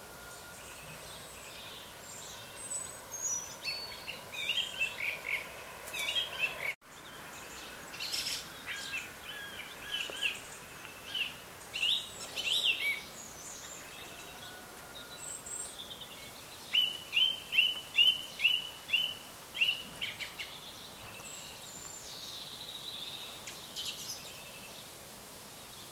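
Several songbirds singing over a faint steady hiss of outdoor background. A few seconds in one bird sings a series of notes falling in pitch, and about seventeen seconds in another repeats a short down-slurred note about nine times, roughly three a second.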